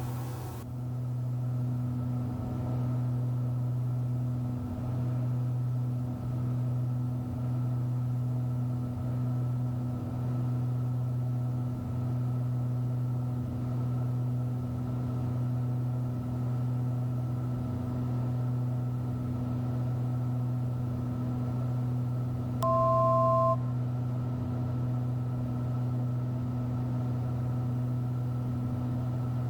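Cabin drone of a pressurized Cessna Skymaster's push-pull twin piston engines in steady cruise-descent, one low even hum. About three-quarters of the way in, a short, loud electronic beep of two tones sounds once.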